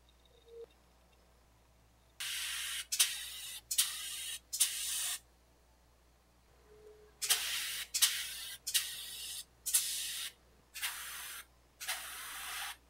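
Airbrush spraying paint in about ten short bursts of hiss, each starting with a sharp puff of air, in two runs with a pause between them.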